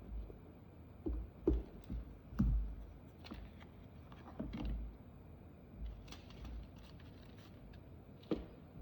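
Scattered light clicks and taps, some with a dull low knock, as small hard objects such as a phone and its accessories are handled and set down on a work surface.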